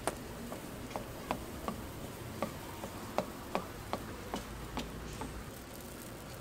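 Metal batter dispenser clicking sharply, two to three times a second, as batter is portioned into the cups of an egg-bread mold; the clicks stop about a second before the end.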